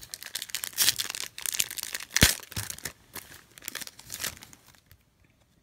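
Foil wrapper of a Pokémon card booster pack crinkling as it is torn open, a rapid crackle with one sharp snap about two seconds in; it stops shortly before the end.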